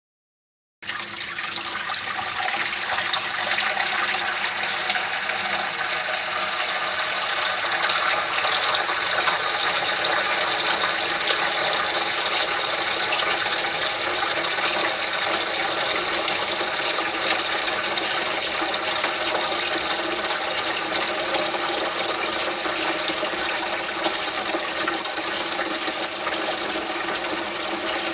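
Water running from a tap into a sink as it fills, starting suddenly about a second in and then running steadily.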